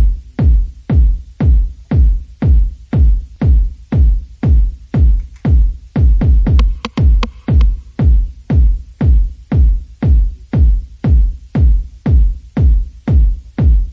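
Background electronic music with a steady, heavy kick-drum beat, about two beats a second.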